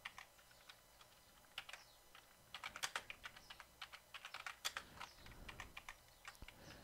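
Faint computer keyboard typing: a few single keystrokes, then a quick run of keystrokes from about two and a half seconds in as a short phrase is typed out.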